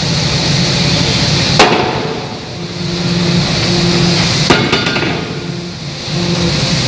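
Anyang C66 open-die forging hammer striking a hot workpiece: one sharp blow about a second and a half in, then a blow followed by a quick rattle of smaller knocks near five seconds. A steady machine hum runs underneath.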